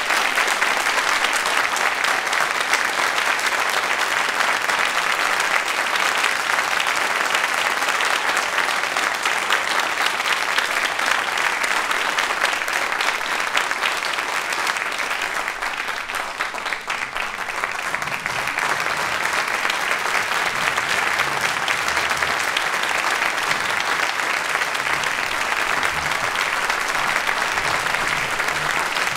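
Audience applauding steadily, easing off briefly about halfway through before picking up again.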